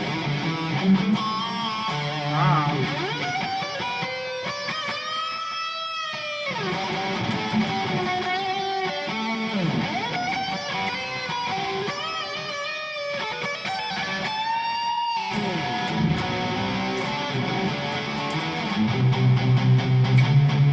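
Harley Benton SC-500 electric guitar played through the Overloud TH3 amp simulator: a lead line of sustained single notes with string bends and vibrato.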